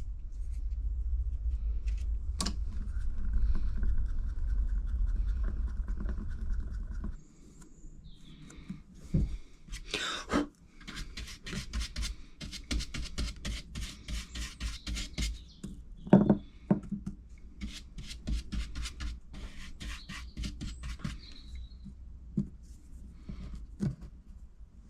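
Polyester resin and hardener being stirred with a mixing stick in a cup: two spells of quick, repeated scraping strokes, after a low rumble in the first seven seconds.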